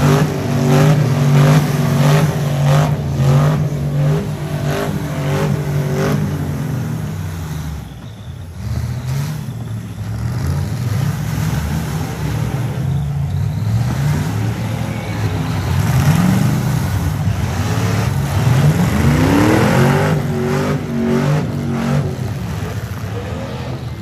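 Demolition-derby pickup trucks' engines running hard and revving, with the pitch sweeping up twice in the second half as drivers floor it. Early on there are repeated bangs of metal hitting metal as the trucks ram each other.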